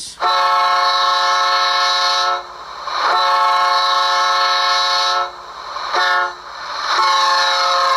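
Fast Doppler horn sound from the ESU LokSound decoder of an HO scale Rapido F40PH-2D model locomotive, played through the model's onboard speaker. A multi-note diesel horn sounds two long blasts, a short one and another long one, the standard grade-crossing signal.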